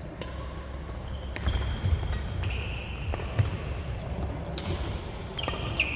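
Badminton rally on a wooden gym floor: sharp racket-on-shuttlecock hits and knocks, sneakers squeaking on the court, and the low thud of footsteps. The squeaks come in the middle and again near the end.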